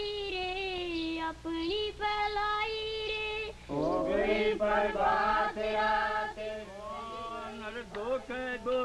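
Soundtrack singing: a high solo voice holds long, wavering notes, and about four seconds in lower voices join for a fuller chorus.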